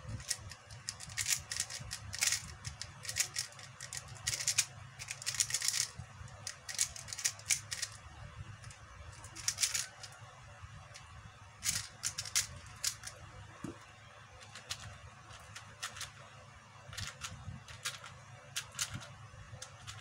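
QiYi 4x4 speedcube being turned fast by hand: flurries of rapid plastic clicks and clacks as the layers turn, broken by short pauses.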